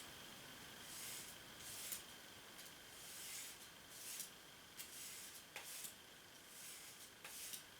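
Faint, light scraping strokes of a knife blade drawn across a sharpening surface, one short hiss about every second. The strokes are working the burr off the edge.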